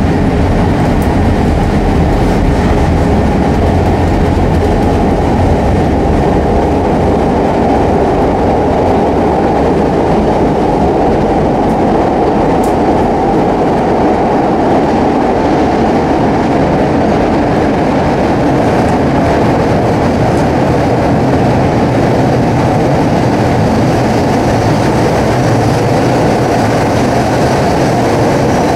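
Steady running noise of a CTA 2600-series rapid-transit car, heard from inside the car as it travels through a subway tunnel: wheels on rail and running gear making a loud, even rumble with no stops or changes.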